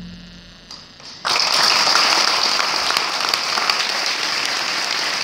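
The last notes of an acoustic guitar and double bass die away. About a second in, an audience breaks into applause that carries on steadily.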